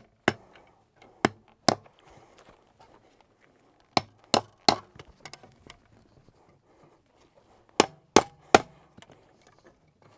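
Hammer blows driving a fence staple over bracing wire into a wooden fence post. The sharp strikes come in three spells of about three quick blows each, a few seconds apart.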